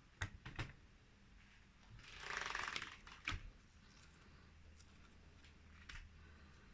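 Slime being handled: a few sharp little pops or clicks, then a longer squish about two seconds in, followed by another pop.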